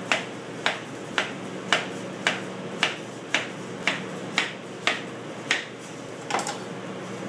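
Chef's knife slicing through a pineapple and knocking down onto the cutting board, a dozen or so crisp knocks at about two a second, one per slice, that stop about a second before the end.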